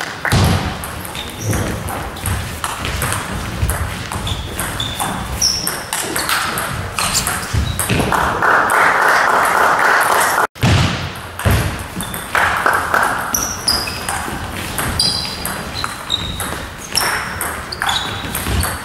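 Table tennis ball being hit back and forth in doubles rallies: quick sharp clicks of the ball off bats and table, with short high squeaks in between. The sound cuts off abruptly about ten seconds in, and the rallying picks up again straight after.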